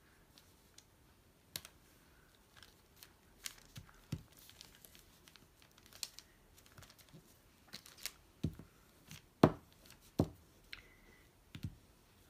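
Paper handling: rustling and fingertips pressing and patting a freshly glued paper cut-out down onto an envelope, with scattered light taps and a few sharper taps in the second half.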